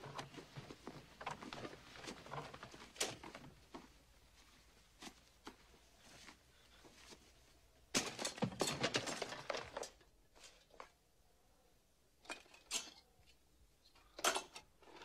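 Hands rummaging through a trunk of old clothes, with soft rustling and light knocks. About eight seconds in comes a louder clinking, rattling clatter as metal movie film reels and cans are shifted and lifted out, then a few sharp knocks near the end as the reels are handled.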